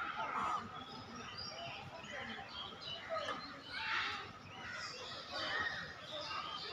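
Birds chirping in the trees, with many short scattered calls, over faint voices of people.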